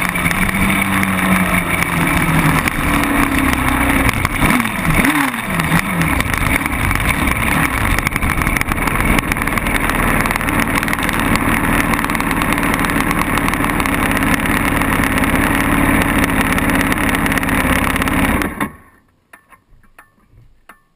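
Quad bike engine running close to the microphone, with a quick rise and fall in revs about four to six seconds in, then running steadily at idle. Near the end the engine cuts out suddenly, leaving only faint sounds.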